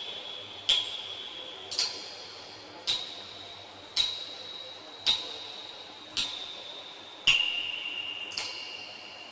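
Water dripping, one drop about every second: eight drops, each landing with a sharp plink and a short ringing ping that fades before the next, the pitch of the ping shifting a little from drop to drop.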